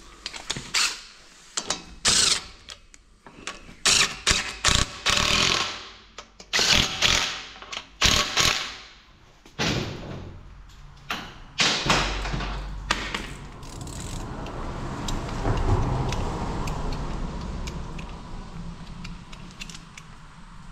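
Hand tools working on metal engine parts: a ratchet wrench clicking in short runs, with metal clattering. About halfway through this gives way to a steadier mechanical noise.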